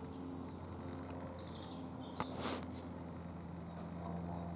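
Outdoor background: small birds chirping faintly and high over a steady low hum, with a brief hiss a little after two seconds in.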